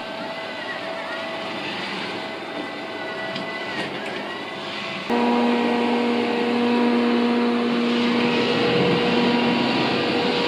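360 S8 robot vacuum cleaner running with a steady whirring hiss and faint whine. About halfway through it suddenly gets louder, with a steady hum added.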